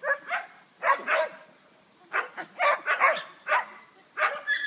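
A dog barking repeatedly in short, sharp barks, in quick clusters with a brief pause partway through.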